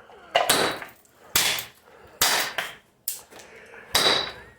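A vacuum cleaner's casing being struck hard, about once a second: five heavy hammer-like blows, each ringing briefly, the fourth lighter than the rest.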